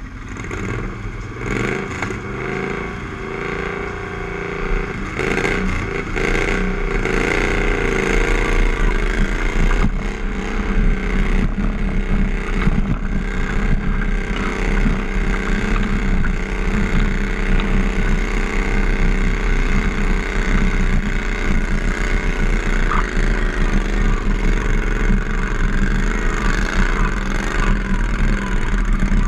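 Modified garden tractor engine running at full throttle under load, pulling a weight sled. Its pitch wavers over the first several seconds of the pull, then holds steady and loud.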